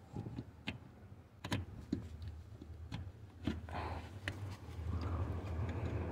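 Light clicks and taps of small parts handled by gloved hands under the dashboard, fitting the transmission shift cable and its bushings, over a low steady hum.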